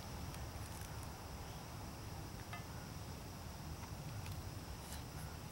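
Steady high-pitched insect chorus, of the cricket kind, over a low background rumble, with a few faint clicks.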